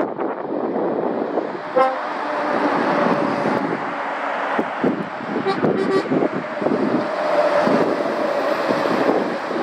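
Road traffic passing on a wet road, tyre and engine noise, with a vehicle horn giving a short toot about two seconds in.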